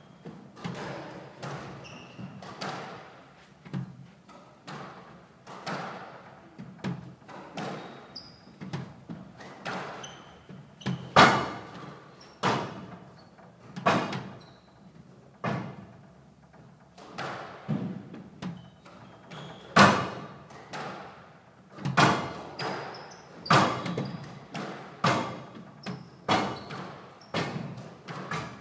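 Squash rally: the racquet striking the ball and the ball hitting the court walls, a steady run of sharp knocks about one to one and a half seconds apart, each ringing briefly in the court. The hardest hits come about 11 and 20 seconds in.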